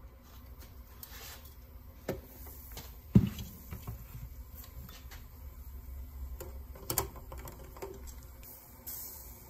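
Saucepan of water at a rolling boil with Jaguar V-12 thermostats in it, under scattered small metal clicks and clinks as needle-nose pliers fish in among the thermostats. A sharp knock about three seconds in is the loudest sound.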